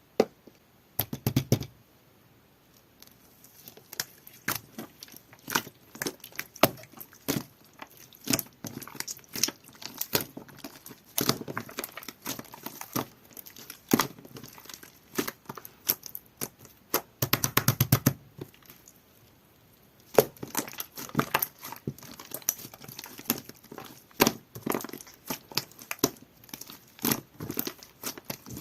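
Jelly-textured slime being squeezed and pressed by hand, making irregular sticky clicks and pops. There are short pauses about two seconds in and again about two-thirds of the way through.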